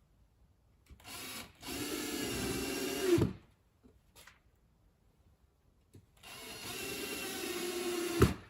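Cordless drill-driver driving two screws into a particleboard drawer panel, each run about two seconds long; the motor's pitch sags as each screw tightens and ends in a sharp knock as it seats.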